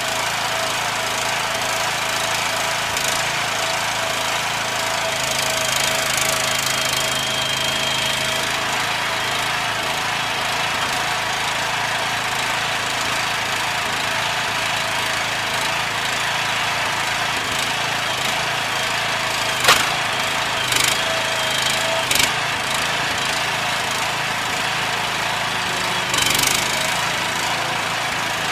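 A small engine running steadily, with a few sharp knocks or cracks about two-thirds of the way through.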